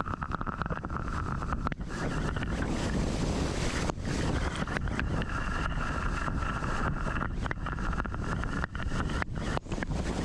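Rushing water of a large waterfall, a steady loud roar, with wind and spray buffeting the microphone in frequent short knocks and dropouts.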